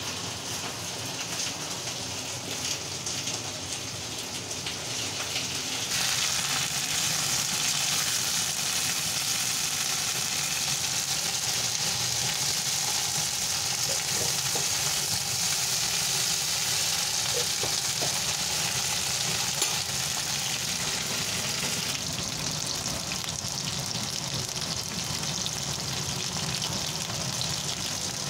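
Chopped okra sizzling as it fries in a metal wok: a steady hiss that grows louder about six seconds in and eases somewhat later on.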